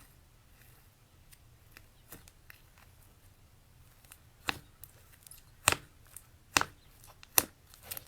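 Slime being handled: faint crackles, then four sharp clicks roughly a second apart in the second half.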